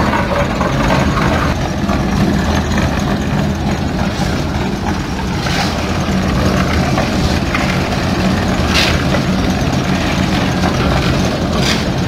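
Drum concrete mixer running steadily, its engine giving an even, low drone under the churning of the turning drum. There are a few short, sharper noises about halfway through and near the end.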